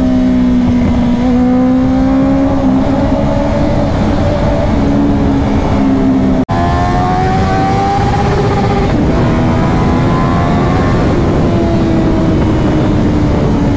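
Honda CBR650F's inline-four engine and exhaust running at highway speed through a road tunnel and back out, with wind rush. The engine note creeps up in pitch several times as the throttle is opened. The sound cuts out for an instant about six and a half seconds in.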